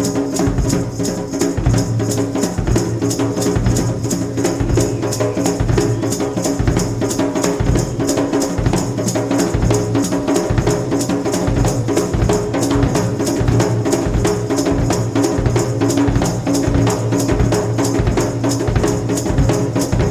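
Background music led by a drum kit, with a steady, even beat of bass and snare drum over held tones.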